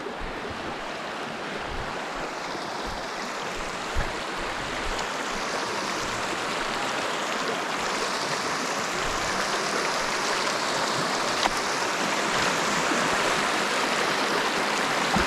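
Rushing river water: a steady rush that slowly grows louder, with a couple of short knocks.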